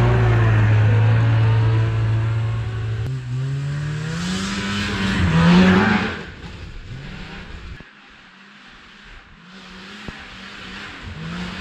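A 1997 Lynx G-Type Enduro 500 snowmobile's two-stroke Rotax 494 engine runs at a steady pitch, then revs up as the sled pulls away and fades into the distance. Near the end the engine grows louder and higher again.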